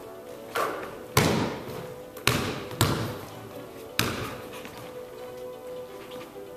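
Basketball bouncing on a wooden gym floor: a softer knock, then a loud bounce about a second in, two more bounces near the third second and a dribble at four seconds, each ringing on in the hall's echo.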